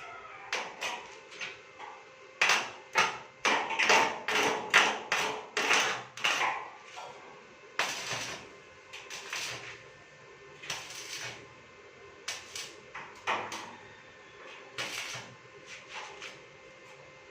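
A series of irregular hard knocks and taps: a dense run of them early on, then scattered single strikes.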